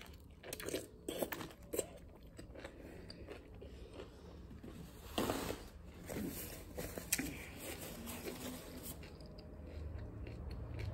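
Close-up biting and chewing of a candy-stuffed chamoy pickle, with crisp crunchy bites in the first couple of seconds and wet chewing after. A paper towel rustles about five to six seconds in.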